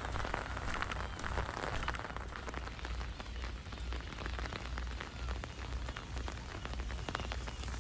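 Rain pattering on an umbrella. After a cut about two seconds in, it gives way to steady rain on wet pavement, with faint calls of black-tailed gulls.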